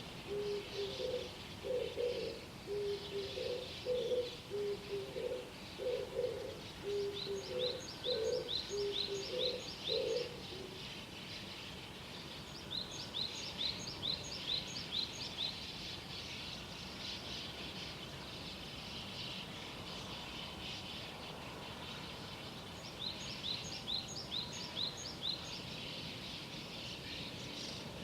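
Morning bird chorus: a dove coos in a low, repeated rhythm for about the first ten seconds, over a steady background of small songbirds. Three times a bird sings a quick run of high, sharply slurred notes.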